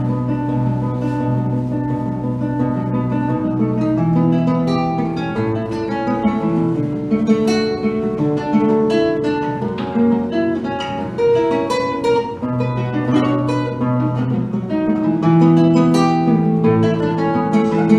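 Solo classical guitar playing a huayno, picking a quick melody of plucked notes over held bass notes, with no voice yet.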